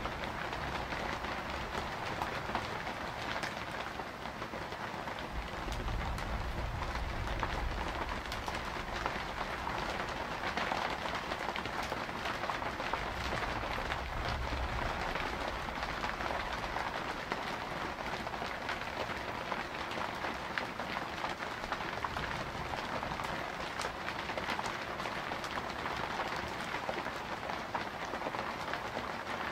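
Steady rain falling, an even hiss and patter, with low thunder rumbles swelling about six seconds in and again around thirteen seconds.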